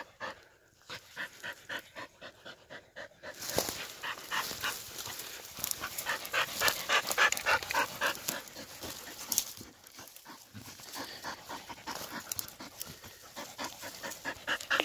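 Laika hunting dogs panting rapidly and rhythmically, several breaths a second.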